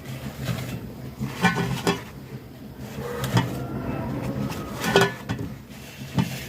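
Mandazis being moved from a container into a saucepan, with several sharp knocks and clinks of the pan and container as they are handled. A steady low hum runs underneath.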